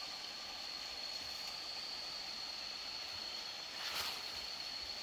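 A steady high-pitched insect whine over a faint outdoor hiss, with a brief rustle about four seconds in.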